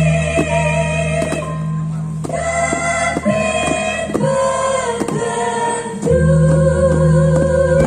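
Live stage music with voices singing long, wavering held notes over a low sustained bass, and a steady light beat about twice a second. The low bass drops out a little after a second in and comes back about six seconds in.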